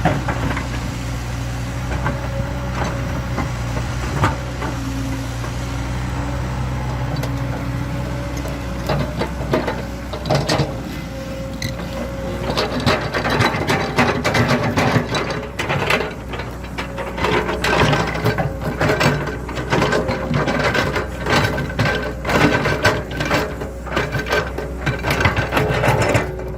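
Excavator's diesel engine running steadily. From about halfway in, a rapid, irregular series of knocks and clanks plays over it, as the machine works.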